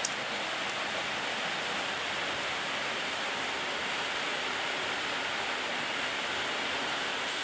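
A steady, even hiss of background noise, with one faint click right at the start.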